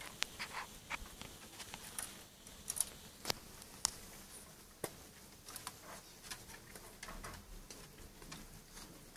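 Scattered light clicks and taps of small animals' claws and feet on wooden decking, irregular, with a few sharper ticks near the start and around three to five seconds in.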